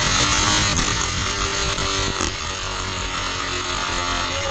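Die-cast toy trucks rolling along orange plastic track, picked up close by a track-level camera: a steady buzzing whir.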